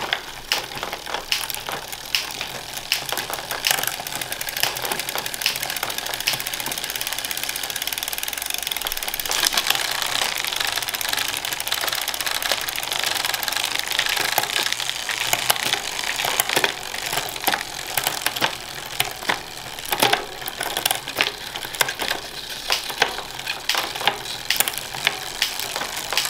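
Bicycle chain and derailleurs running as the cranks are turned by hand, a fast mechanical rattle with occasional sharp clicks as gears are shifted. This is a check of the shifting just after a new chain was fitted, since a new, tighter chain can put the gears out of adjustment.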